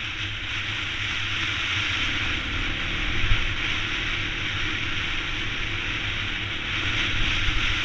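A 2014 Yamaha XT250 being ridden: steady wind rush over the microphone with the motorcycle's single-cylinder engine rumbling underneath.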